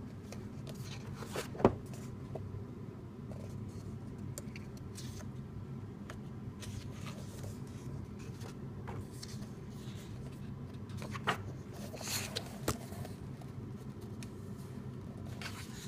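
Steady low room hum with a sharp click early on and a few brief rustles and clicks later, the sounds of paper and objects being handled.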